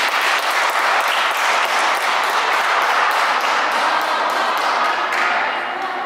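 Crowd of spectators clapping and cheering in a sports hall at the end of a volleyball rally, the applause dying away about five seconds in.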